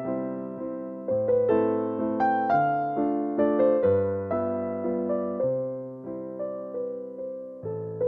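Background instrumental music: a slow melody of single notes, each fading after it starts, over low notes that change every second or so.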